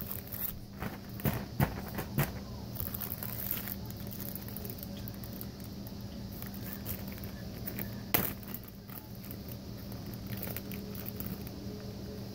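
Plastic zipper bags crinkling and rustling as they are handled, with scattered clicks and one sharp click about eight seconds in, over a steady low hum.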